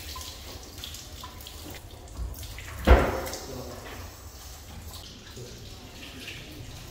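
Water running from a wall-mounted tap at an ablution (wudu) station and splashing over hands as they are washed, with one sharp knock about three seconds in.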